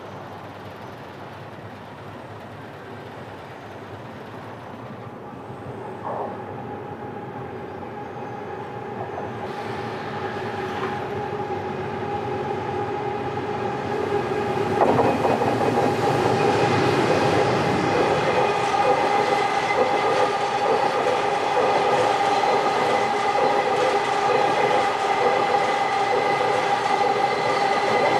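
Electric freight train of an EH200 locomotive and oil tank cars approaching and running past, growing louder until about halfway through and then staying loud. A steady whine sits over rhythmic wheel clatter.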